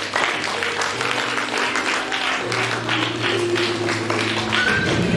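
Music with a steady beat playing for a children's stage dance, with audience clapping mixed in.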